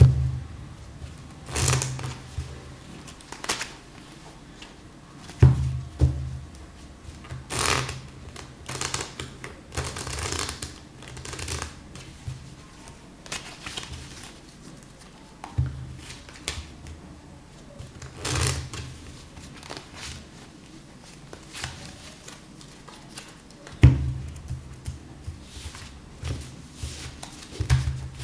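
A deck of playing cards being handled and dealt on a cloth close-up mat. Irregular snaps and riffles of the cards, with a dull knock of the deck or hands on the table every few seconds.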